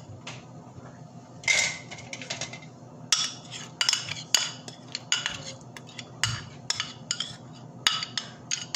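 Metal spoon scraping and clinking against a plate as spices are scraped off it into a bowl of raw chicken. There is one ringing clink about one and a half seconds in, then a run of quick, irregular clinks and scrapes, several a second.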